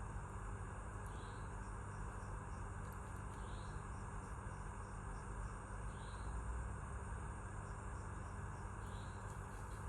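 Insect chirping, one short high chirp every two to three seconds, four in all, over a steady background noise.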